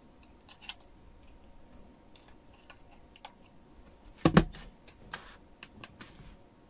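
Small plastic clicks and handling noise from a pocket radio's case as a micro SD card is worked into its side slot and its buttons are pressed, with one louder knock about four seconds in.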